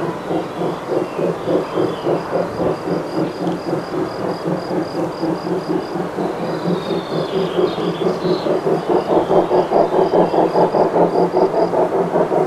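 Two-cylinder steam locomotive 24 009 working a goods train, its exhaust beats coming evenly at about four a second and growing louder about nine seconds in. A high insect chirps in a steady series above it.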